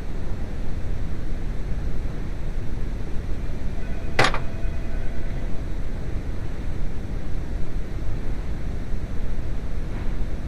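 Steady low rumbling noise, with one sharp clink about four seconds in that rings briefly.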